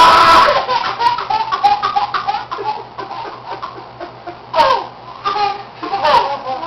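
Toddler laughing hard: a loud high-pitched burst of laughter at the start, then a run of quick giggling pulses, and two falling squeals of laughter near the end.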